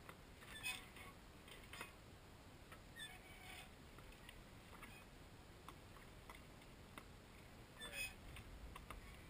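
Near silence: a faint steady hiss broken by a few short clicks and knocks, the loudest about two-thirds of a second in and another about eight seconds in.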